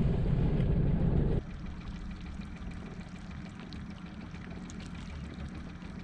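A 40 hp outboard motor running steadily at slow trolling speed, a low drone. About a second and a half in the sound drops abruptly to a quieter engine hum under water trickling and splashing along the hull.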